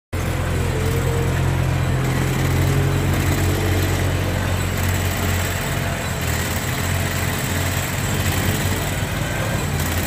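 Diesel engine of a Sherpa 100 mini skid steer running steadily as the loader drives and works.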